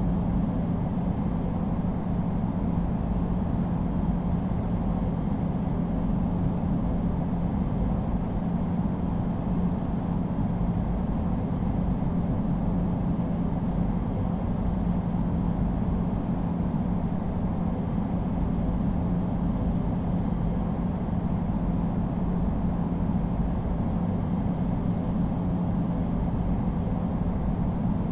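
Cabin noise inside a Boeing 787-9 airliner: a steady rumble from the engines and passing air, with a constant low hum running under it.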